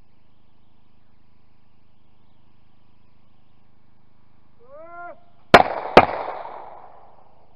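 A short shouted call for the clay, then two shotgun shots about half a second apart. The reports die away over about a second.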